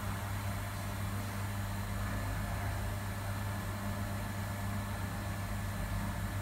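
Steady low mechanical hum of a commercial kitchen's running machinery, a constant drone with an even hiss over it and no distinct knocks or clatter.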